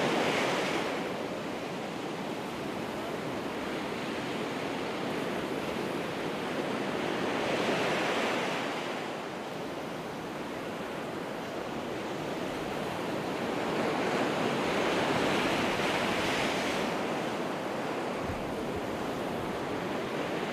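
Ocean surf breaking and washing up a sandy beach. The rush swells and eases in long rolls, rising three times.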